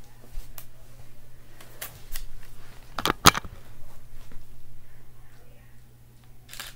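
Camera shutter clicking as portrait photos are taken. The loudest is a pair of sharp clicks about three seconds in, with fainter ticks before and one more near the end, over a steady low hum.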